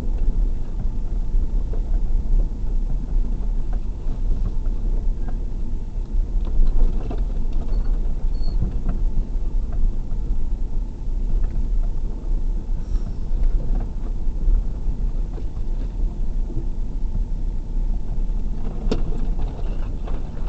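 Off-road vehicle's engine running at low speed, heard from inside the cabin, with the rumble of tyres over a rough dirt track and scattered knocks and rattles from the bumpy ground, one sharper knock near the end.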